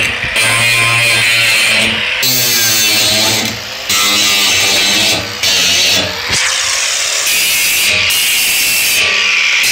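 Angle grinder with a cut-off wheel cutting through the steel bars of an IBC tote's cage, a steady high grinding hiss broken by a few short pauses as the wheel comes off the metal.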